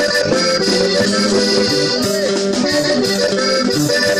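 Accordion-led Latin American traditional music playing steadily, with held accordion notes over the band.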